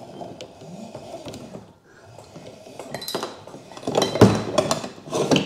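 Anchor Wizard hand crank being wound to reel up a 5-pound mushroom anchor, with soft scraping and clinking at first, then louder clicks and clatter and a knock about four seconds in.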